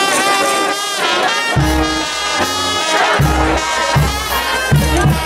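Brass band playing: trumpets and trombones carry the melody over a tuba bass line that pulses in a steady beat.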